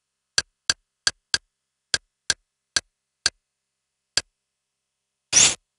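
Menu navigation clicks from a media-centre program's interface as a channel list is scrolled: nine short ticks at uneven spacing, two or three a second, with dead silence between them. Near the end comes one longer, breathier interface sound.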